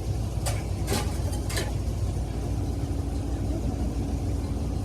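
Engine running steadily with a low rumble. Three sharp knocks come in the first two seconds, and a steady hum joins about halfway through.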